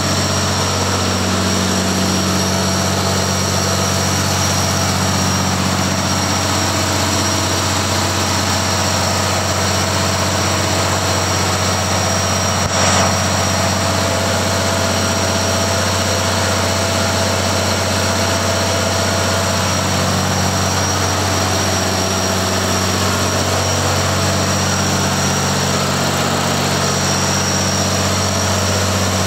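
Deutz BF6L914C air-cooled, turbocharged six-cylinder diesel running steadily, with a steady high whine over the engine note. A single short click is heard about halfway through.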